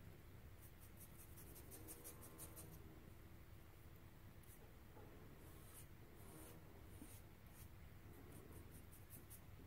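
Faint, intermittent strokes of a small wet paintbrush on paper, spreading water over black water-soluble pencil shading, in near silence.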